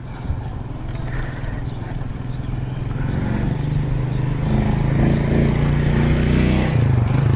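A motor vehicle's engine running, a steady hum that grows louder over the last few seconds, its pitch dipping briefly near the end.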